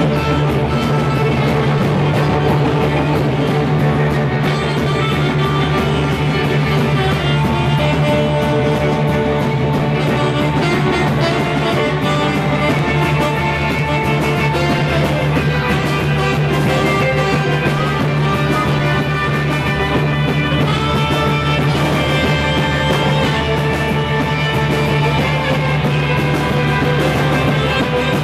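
A live rock band playing loud and steady, with electric guitar to the fore and no singing.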